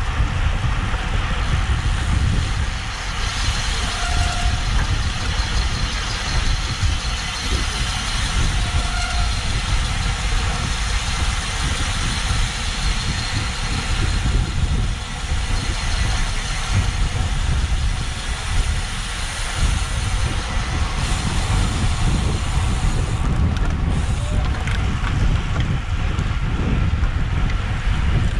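Steady wind rush and buffeting on a GoPro's microphone while riding a road bike at race speed, a loud low rumble with a hiss of air and road over it.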